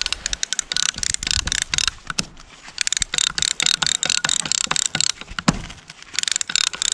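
Hand ratchet strap tensioner clicking in quick runs as its handle is pumped, tightening a polyester strapping band around a firewood bundle. A single thump comes about five and a half seconds in.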